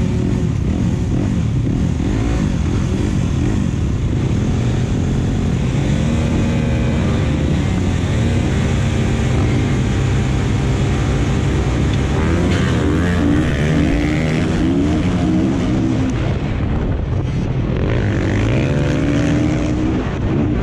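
Several dirt bike engines running together, revving up and down, their pitches rising, falling and overlapping.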